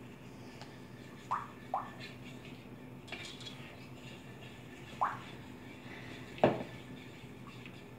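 A bottle emptying upside down into a bowl, giving a few short glugs as air bubbles in: two close together early, one about five seconds in, and the loudest about six and a half seconds in.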